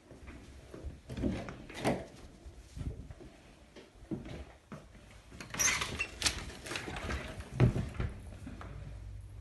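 Scattered knocks and clicks of a white panelled interior door being handled, with footsteps, several sharp clicks about two-thirds of the way in and a thud near the end.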